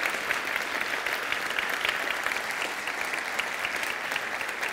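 Audience applauding: many people clapping at once in a steady dense patter that keeps going and begins to thin near the end.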